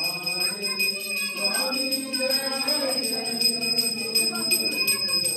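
Temple bell rung in quick, continuous strikes, its high metallic ring held steady throughout, over the murmur of a crowd of worshippers.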